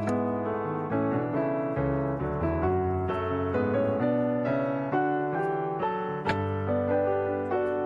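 Background piano music: a gentle melody of single struck notes over a sustained lower line, played without pause.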